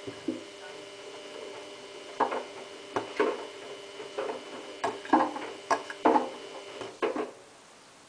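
Samsung WF8804RPA washing machine's drum turning slowly in its post-spin anti-crease tumble. The motor whines steadily while the wet laundry thuds and slaps irregularly as it drops inside the drum, and the motor stops about seven seconds in.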